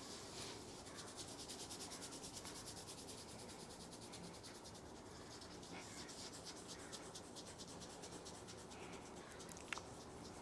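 Fingers rubbing rapidly over hair and scalp in a head massage: a quick, even run of faint scratchy strokes, several a second, with a single sharp click near the end.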